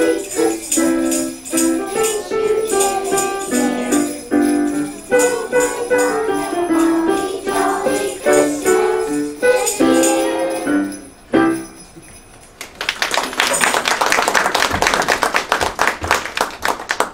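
A Christmas song plays with bright jingling in it and ends about eleven seconds in. After a brief pause the audience applauds.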